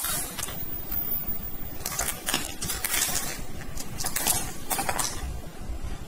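Flat glass pebbles clattering and clicking against each other as a hand stirs and scoops them in a perforated container. The clicks come in short clusters: once right at the start, then repeatedly from about two seconds in until shortly before the end.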